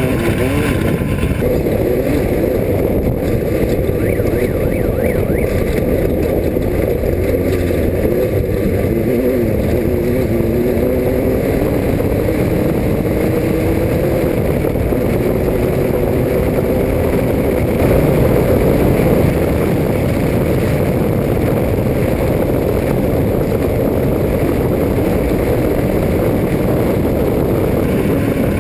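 Off-road race car's engine running hard, its pitch rising and falling as the revs change, over a steady rushing noise.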